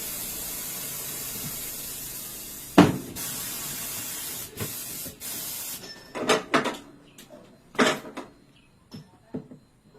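Pneumatic bead breaker of a tire changer hissing with compressed air as it presses the bead of a Yamaha NMAX scooter tire off the rim. A loud sharp clunk comes about three seconds in, then shorter on-off hisses and a few knocks.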